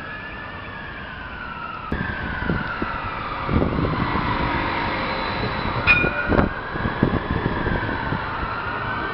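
Edinburgh tram (CAF Urbos 3) rolling past close by, rumbling, with several knocks from about two seconds in as it passes. Behind it a siren wails slowly up and down.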